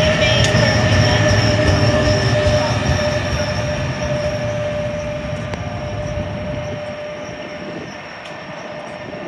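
NJ Transit ALP-46 electric locomotive and multilevel coaches rolling past and away, their rumble fading from about two thirds of the way in. Over it a steady, high wheel squeal from the curving track holds on after the rumble has died away.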